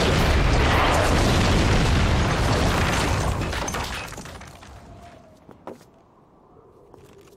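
Cartoon explosion sound effect: a loud, dense blast with a heavy low rumble that dies away over about four seconds, leaving it much quieter with one faint knock.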